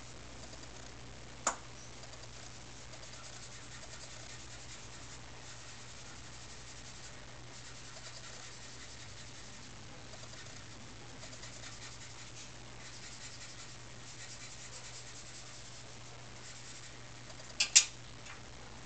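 Faint scratching of a pencil on paper in short, quick strokes, with a steady low hum underneath. A sharp click comes about one and a half seconds in, and two louder clicks near the end.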